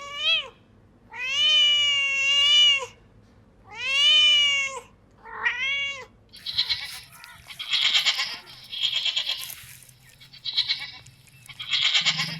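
A cat meowing: three long, drawn-out meows, each rising and falling in pitch. After about six seconds they give way to a string of short, harsh, hissy animal calls.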